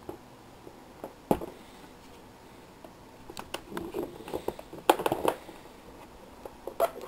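Handling noise from a new rotary hammer being picked up and turned over: scattered clicks and knocks of the tool's hard plastic and metal parts. There is one sharp knock about a second in, and a quick cluster of clacks around four to five seconds.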